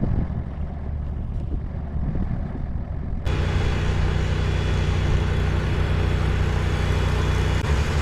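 Bobcat E40 mini excavator's diesel engine running steadily. About three seconds in, the sound jumps abruptly to a louder, closer steady drone.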